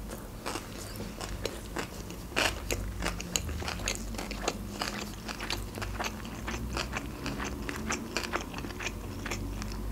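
Close-miked chewing of a mouthful of sushi rolls: a steady run of small, short mouth clicks, with one louder click about two and a half seconds in.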